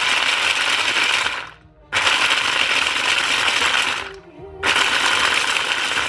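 Electric food processor running in three pulses, stopping briefly about one and a half and four seconds in, its blades chopping a crumble topping that rattles against the bowl.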